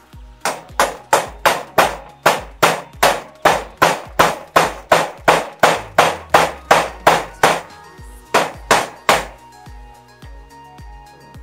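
Hammer blows in a fast, even run of about three strikes a second for some seven seconds, then a short pause and three more strikes, as in nailing roof timbers.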